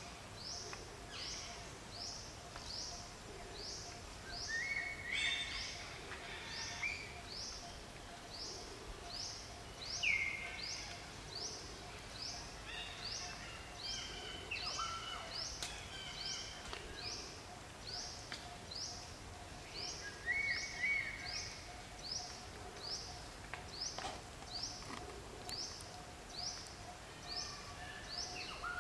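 Forest ambience: a sharp, high chirp repeats evenly about three times every two seconds. A few lower bird whistles are scattered through, one of them falling in pitch, over a faint steady drone.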